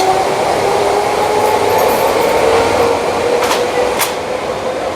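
A rail car running: a loud, even rumble with a steady high whine, and two sharp clicks about three and a half and four seconds in.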